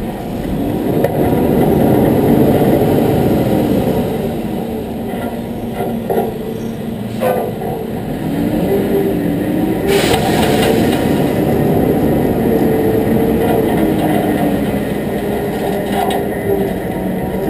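A truck's engine and tyre noise heard from a camera mounted on the truck's side, the engine pitch rising and falling as it speeds up and slows, with a couple of sharp knocks partway through.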